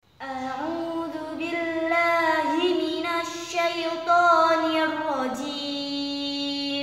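A young woman's solo voice reciting the Quran in a slow, melodic chanting style, with long drawn-out notes that glide up and down; about two-thirds of the way in the voice settles onto one long held note.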